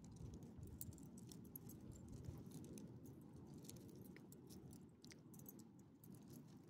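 Near silence: faint, scattered small clicks and crunches over a low rumble, from a small elderly dog stepping and sniffing about on gravel.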